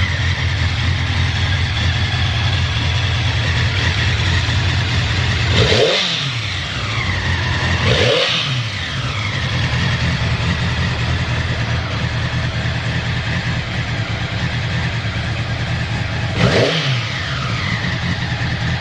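Honda CBX650 motorcycle's air-cooled inline-four engine idling steadily, blipped three times: about six seconds in, about eight seconds in, and near the end. Each rev rises briefly and falls straight back to a stable idle, with no abnormal noise.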